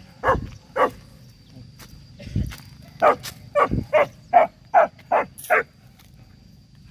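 Dog barking: two sharp barks at the start, then a quick run of about eight barks between three and six seconds in. A dull thump sounds a little after two seconds.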